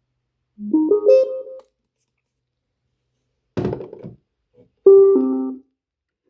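Karaoke boombox's electronic chimes: a short jingle of rising notes, a thunk, then a short jingle of falling notes.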